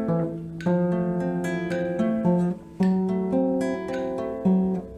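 Background music: an acoustic guitar picking a melody of quick plucked notes, with a brief break about two and a half seconds in.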